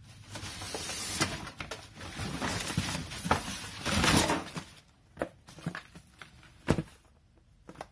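Rummaging through a box of doll clothes and small items. Rustling with quick small knocks for about four and a half seconds, then a few separate knocks.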